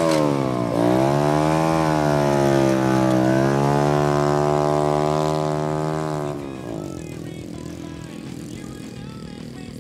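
Small 50cc chopper motorcycle's single-cylinder engine pulling away: the revs dip, climb, hold steady, then fade about six seconds in as the bike rides off.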